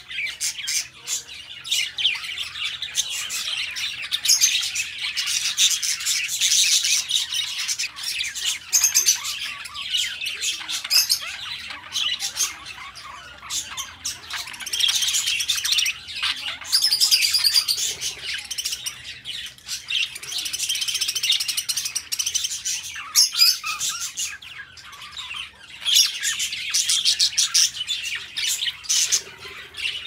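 A flock of budgerigars chattering and warbling without pause: a busy tangle of high chirps, squawks and many sharp clicks that swells and dips every few seconds.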